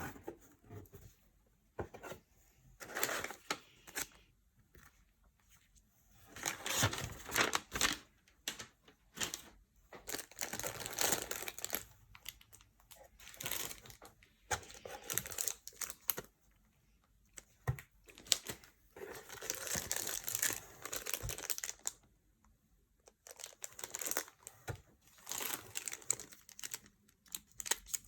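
Packaging being unwrapped by hand: irregular bursts of rustling, crinkling and tearing of paper and plastic wrap, with short pauses between.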